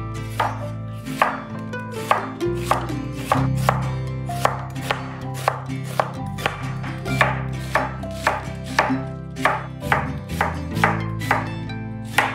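Knife chopping food on a cutting board, a steady run of sharp cuts about two to three a second, over background music.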